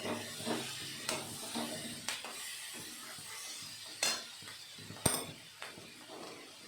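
Vegetables frying with spices in a pan while being stirred: a low sizzle with a spatula scraping and clinking against the pan, the sharpest clink about five seconds in.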